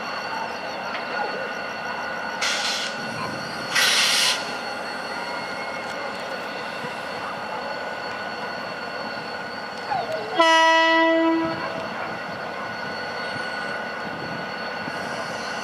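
EMD GT22 diesel-electric locomotive pulling out, running steadily with a faint high whine. Two short hisses come about two and a half and four seconds in, and about ten seconds in the horn sounds one single-note blast lasting about a second.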